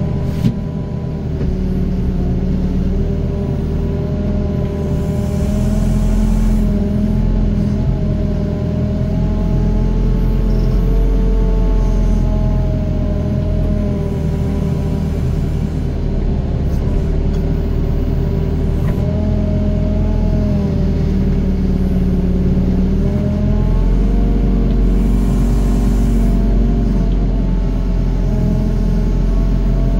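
Doosan DX55 mini excavator's diesel engine running steadily under hydraulic load while digging and dumping soil, its note dipping and rising again every few seconds as the arm and bucket work.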